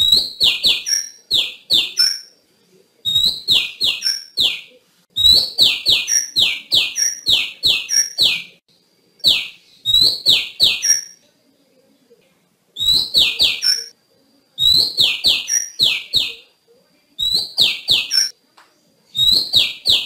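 Female oriental magpie-robin calling: bursts of short notes that slide downward in pitch, mixed with sharp clicks, repeated with brief pauses between. This is a lure call that bird keepers play to provoke male magpie-robins into singing.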